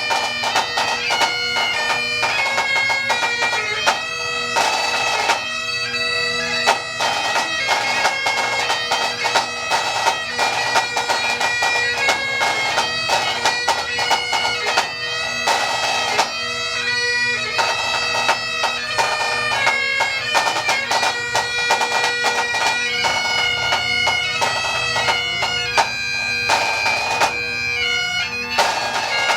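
Pipe band playing: Great Highland bagpipes sounding a melody over their steady drone, with snare and bass drums keeping time.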